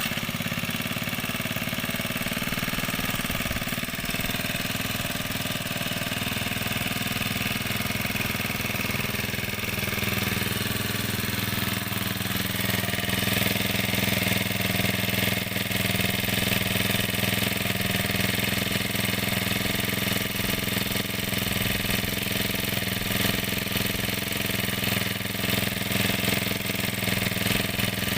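Small petrol engine of a grass-cutting machine running steadily, getting a little louder about twelve seconds in.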